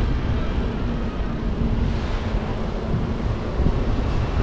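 Steady low-pitched wind noise on the microphone of a camera moving along the promenade, mixed with road traffic beside it.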